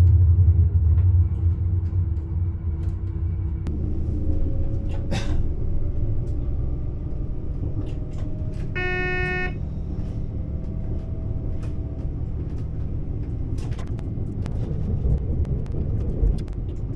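Regional train running along the track, heard from inside the driver's cab as a steady low rumble, with a faint whine slowly rising in pitch. About nine seconds in, a short clear tone sounds for under a second.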